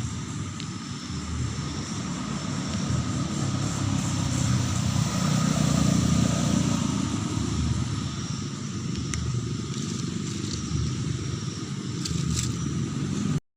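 A passing motor vehicle's engine rumble, growing louder to a peak about six seconds in and then fading away; the sound cuts off abruptly at the very end.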